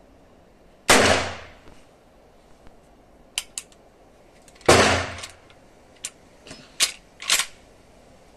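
Two gunshots from a Winchester 1873 lever-action rifle, close to four seconds apart, each followed by a decaying echo. Between and after the shots come sharp metallic clicks of the lever being worked to eject the spent case and chamber the next round.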